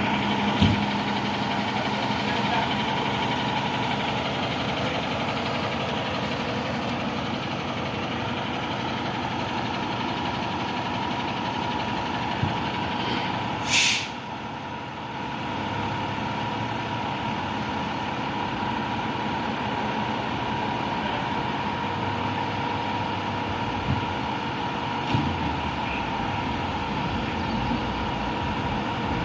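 Fire engine's diesel running steadily, with one short, sharp hiss of its air brakes about halfway through.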